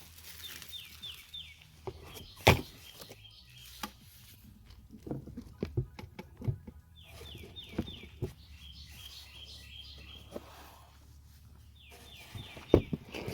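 A songbird sings a short phrase of about five quick, falling whistled notes, three times, about five seconds apart. Sharp clicks and knocks sound throughout, the loudest about two and a half seconds in and near the end.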